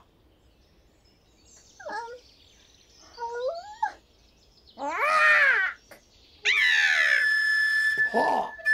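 Cartoon-style creature and bird call sound effects. Short warbling squeaks come first, then a louder rising-and-falling chirp, then quickly falling sweeps that settle into a held high note.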